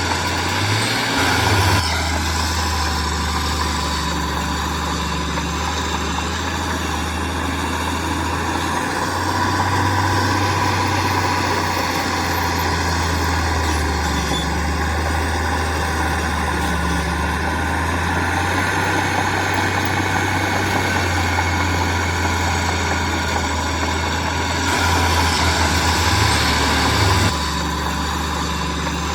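Heavy diesel engine of earthmoving machinery running steadily, getting somewhat louder for a few seconds about a third of the way in and again near the end.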